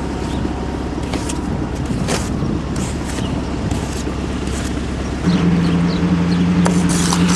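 A truck's engine running, heard from inside the cab. About five seconds in it suddenly gets louder, with a stronger steady hum.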